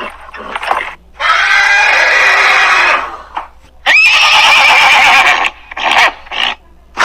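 Horse neighing: two long whinnies, the second opening with a sharp rising squeal, then a few shorter calls near the end.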